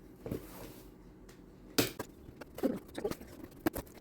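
Parcel packaging being handled and opened: scattered clicks, rustles and knocks, the loudest about two seconds in and several quick clicks near the end.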